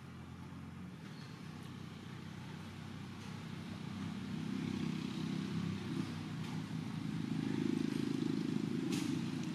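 Low, steady motor-vehicle engine rumble that grows louder over the first several seconds and peaks near the end, with one sharp click about nine seconds in.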